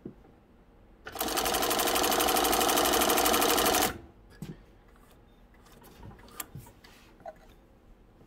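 Speedway SW-1341VS compound-feed, cylinder-bed industrial sewing machine stitching through two layers of thick, hard leather. It runs at a steady fast stitch rate for about three seconds, starting about a second in and stopping abruptly, and sews through without trouble. Light clicks and rustling follow as the leather is handled.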